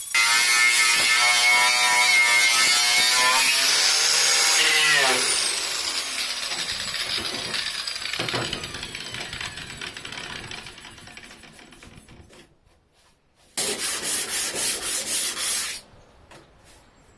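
Electric grinder working on the car body's metal and filler: loud, its motor note steady, then falling in pitch as it winds down about four to five seconds in. A second short, loud burst of grinding comes about three-quarters of the way through.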